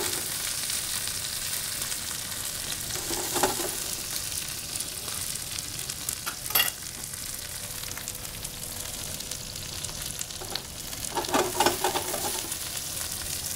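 Mushrooms and shallot rings sizzling steadily in browning butter in a stainless steel frying pan over a high gas flame. A few brief clatters of the tongs and pan come about 3 s, 6 s and 11 to 12 s in.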